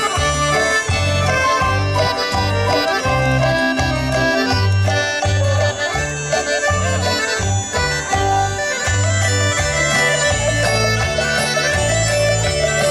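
Instrumental folk music: sustained melody notes over a bass line that steps from note to note about twice a second.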